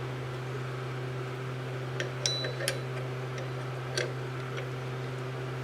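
Steady electric hum from the cylindrical grinder's motor, with a few light metallic clicks about two and four seconds in, one of them ringing briefly like a small steel part or tool being set down.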